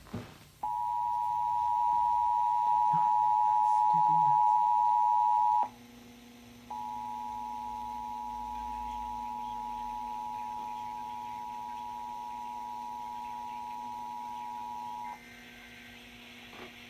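Emergency Alert System two-tone attention signal, two steady tones sounding together as a harsh chord, heralding a severe thunderstorm warning. It sounds loudly for about five seconds, stops, then returns more quietly for about eight seconds over a low steady hum. The hum carries on after the tones end near the close.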